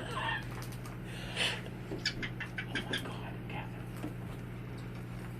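Cage birds chirping in quick, short, high notes, with a louder rasping call about one and a half seconds in, over a steady low hum.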